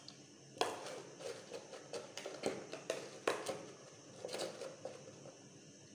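Scattered, irregular light taps and scrapes from a stainless-steel box grater with plastic caps being handled and worked by hand.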